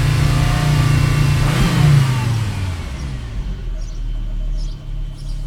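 2001 Volvo C70's 2.4-litre low-pressure turbo five-cylinder engine held at raised revs, wavering with a brief surge about two seconds in, then its note falling away to a lower, steadier run. The owner describes it as sounding like it is flooding and then suddenly bursting into life: a warm-engine misfire and hesitation that new plugs, coil packs and MAF have not cured.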